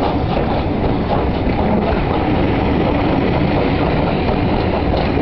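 A steam train departing, with a steady loud rumble of wheels and carriages rolling on the rails.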